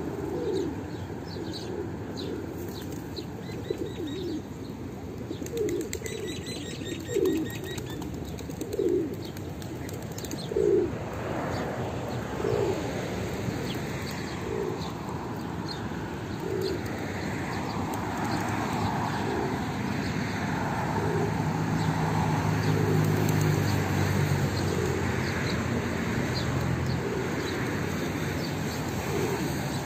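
Feral rock pigeons cooing, with short low coos coming about once a second for the first twelve seconds and small birds chirping high above. A flutter of wings follows, then a steady low hum takes over.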